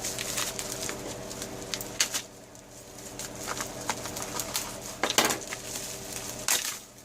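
Packaging rustling and crinkling in the hands as a package is unwrapped, with scattered sharp crackles and small clicks. A steady low hum runs underneath.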